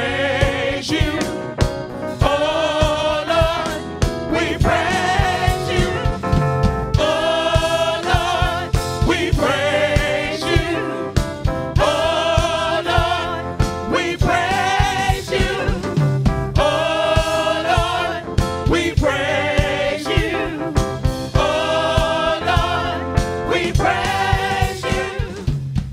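Live gospel song: a woman singing lead with a small vocal group, accompanied by keyboard over a steady beat.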